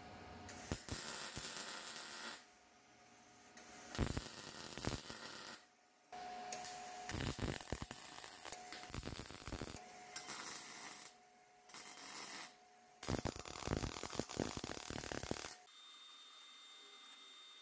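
Electric arc welding on steel tubing: about five runs of sputtering, crackling arc noise lasting one to five seconds each, with short pauses between them. The welding stops near the end.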